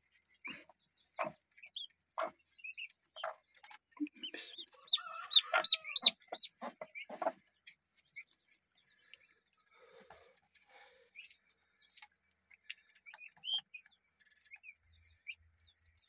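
Broody hen clucking about once a second to her newly hatched turkey poults, with a short flurry of high poult peeps about five seconds in, the loudest moment; after that only a few faint peeps.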